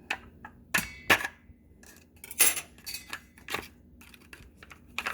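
A tub of cream cheese frosting being opened and handled on a kitchen counter: a series of sharp clicks and knocks of plastic and utensils, the loudest about a second in.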